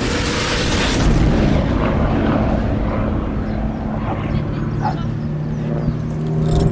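Aircraft flying past with a loud, rumbling roar, a faint high whine falling in pitch in the first half-second.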